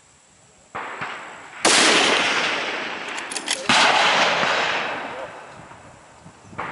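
Rifle shots at a long-range precision rifle match: a fainter shot, then two loud shots about two seconds apart, each rolling off in a long echo.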